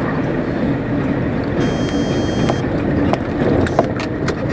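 Heavy truck's engine and tyre noise heard from inside the cab as it drives away from the toll booth, steady throughout, with a few short sharp clicks in the second half.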